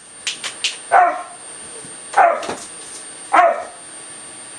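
A dog barking three times, about a second apart, with a few sharp clicks just before the first bark.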